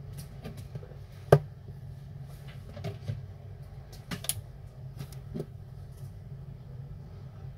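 Scattered light clicks and taps of small tools and phone parts being handled on a repair bench, the sharpest about a second in, over a steady low hum.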